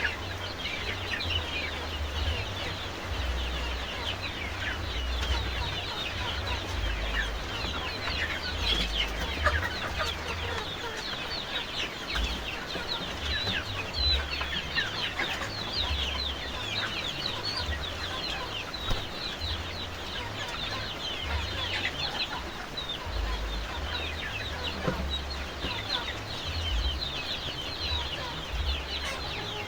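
A flock of free-range village chickens clucking and chirping without pause, many short high calls overlapping. Rain falls steadily on the coop behind them as a constant hiss.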